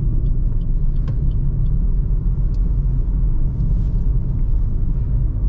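Steady low engine and tyre rumble heard inside the cabin of a Suzuki Ertiga cruising on an asphalt road.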